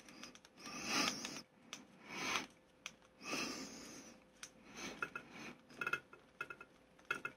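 A person breathing through the nose close to the microphone three times, then a run of small, sharp clicks from a hand screwdriver turning a small screw into a model kit's plastic and metal frame.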